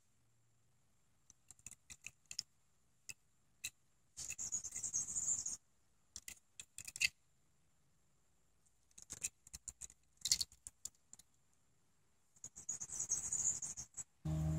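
Handling noise from a die-cast toy car being turned over in the hand: scattered small clicks, with two short hissy rustles, one about four seconds in and one near the end.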